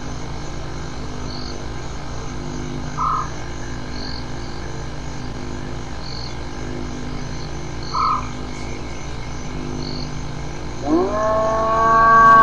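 Spotted hyena whoop: a long call that rises quickly in pitch about eleven seconds in and is then held, over a steady hiss. Two brief faint sounds come earlier, about three and eight seconds in.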